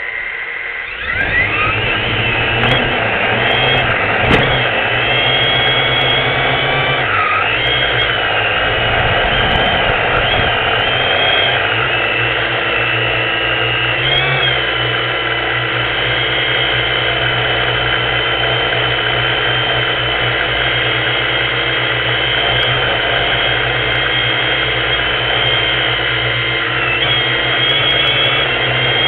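A small camera drone's electric motors and propellers spin up about a second in, rising in pitch as it lifts off. It then runs at a steady high whine that wavers in pitch now and then as it flies.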